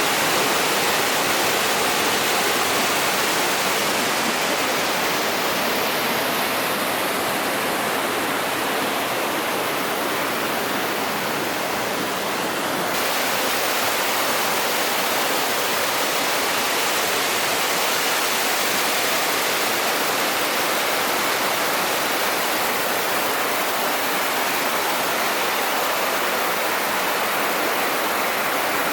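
Mountain stream water rushing and splashing over rocks: a steady, full hiss. About halfway through, the high part of the hiss brightens suddenly after being duller for several seconds.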